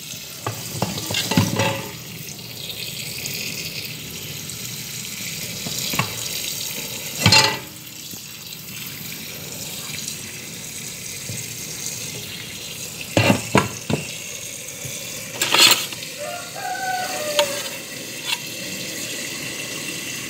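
Kitchen tap running steadily, its water stream filling a cooking pot of chopped meat and vegetables, with a few sharp knocks along the way.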